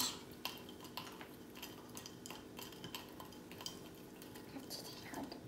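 A small stirrer clinking and tapping against the inside of a glass wine glass as coloured liquid is stirred, in light irregular clicks over a faint steady hum.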